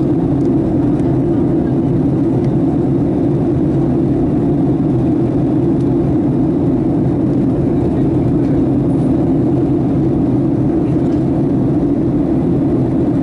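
Steady cabin noise of a passenger airliner in flight: engine and airflow drone, a loud, unchanging low hum.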